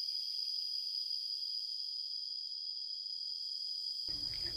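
Insects, crickets by the sound, trilling steadily in one continuous high-pitched tone, with nothing else heard.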